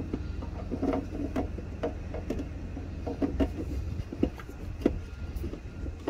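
Hard plastic clicks, knocks and scrapes as a turn-signal bulb socket with an LED bulb is worked back into its hole in the plastic headlight housing. The clicks come irregularly, several a second at times, over a low steady rumble.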